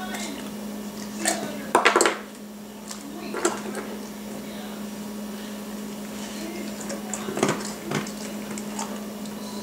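Dry kibble rattling and clinking in a stainless steel bowl as a small hand scoops through it, in a few short bursts, the loudest cluster about two seconds in. A steady low hum runs underneath.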